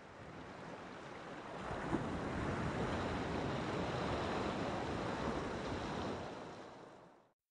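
Sea surf, a steady rushing wash of waves that swells up in the first two seconds and fades away to nothing near the end.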